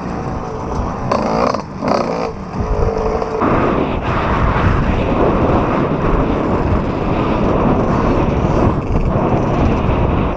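Riding noise from a fast electric mountain bike on a dirt trail. For the first three seconds or so a pitched motor whine sits over the rush, then a louder, even rushing noise of wind and tyres takes over.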